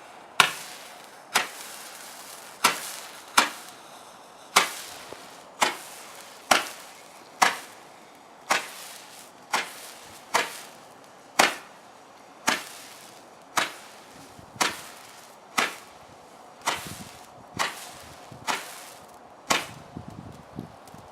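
Keller Roman candle firing its stars one after another: about twenty sharp pops, roughly one a second.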